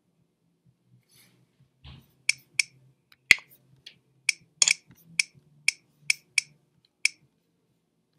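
Computer mouse button clicking: about ten sharp clicks over some five seconds, a few in quick pairs, with a soft bump just before the first. A faint low hum runs beneath.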